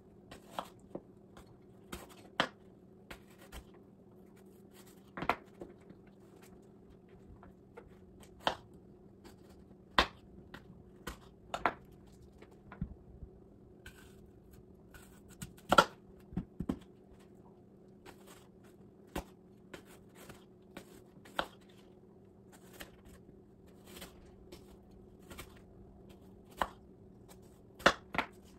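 Kitchen knife slicing apples on a wooden cutting board: irregular sharp knocks as the blade cuts through and meets the board, over a faint steady hum.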